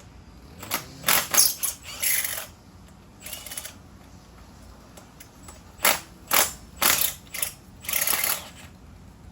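A Milwaukee 3/8-inch stubby cordless impact wrench hammering in short bursts, loosening bolts on the second side of the engine. There are about nine bursts in two clusters.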